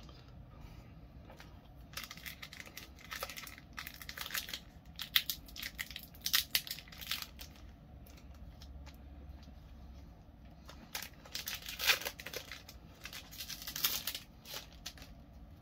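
Foil wrapper of a Pokémon card booster pack being torn open and crinkled, in two spells of crackling and rustling: one from about two seconds in, another near the end.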